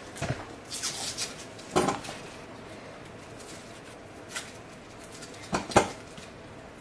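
Papery husks being peeled off tomatillos by hand: scattered crackling rustles, with a few sharper knocks, the loudest about two seconds in and two more near the end.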